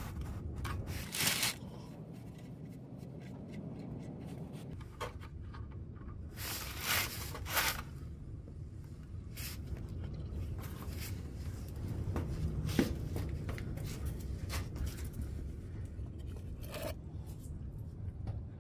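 A 12 mm hex key scraping and clicking in a steel oil-sump drain plug as it is worked loose and unscrewed by hand: a few short, scattered scrapes and taps over a low hum.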